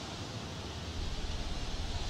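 Steady background hiss, joined about a second in by a low hum.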